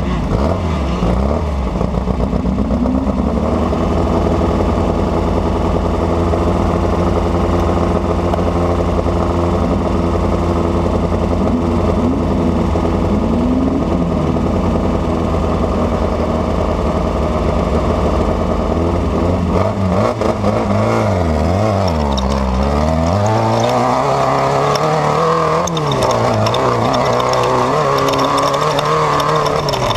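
Desert race car's engine heard from inside the car, running hard at a steady pitch. About two-thirds of the way through, the engine note falls and rises several times as the throttle is lifted and reapplied.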